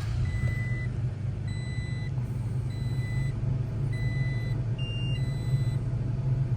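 A Toyota Tacoma pickup's engine idling steadily just after startup, while an in-cabin warning chime beeps five times at an even pace, about one beep every second and a bit.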